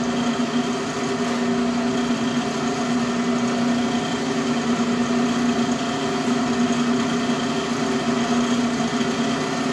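Vertical knee milling machine running steadily with its spindle turning, a constant machine hum with several steady tones and no change in pitch.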